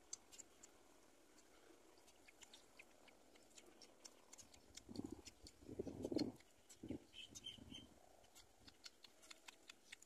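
Near silence: faint scattered clicks throughout, with a few soft muffled thumps about five to seven seconds in.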